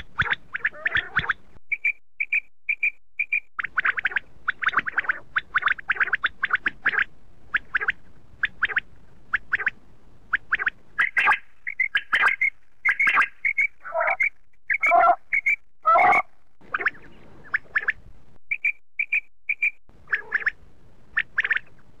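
Common quail calling: short clear notes, some in quick runs of three or four, mixed with rapid raspy, clicky calls repeated throughout.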